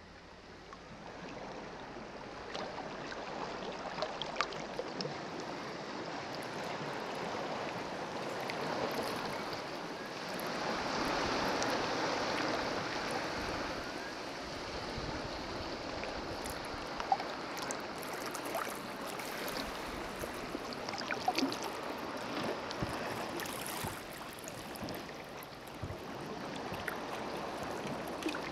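Flowing water: a steady stream-like rush with small drips and plops scattered through it, a little louder near the middle.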